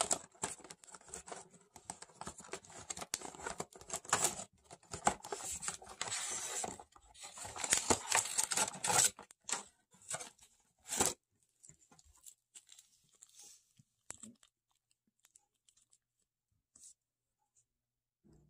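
Cardboard box packaging being pulled open and torn by hand, with irregular tearing and rustling for about eleven seconds, then a few faint light taps.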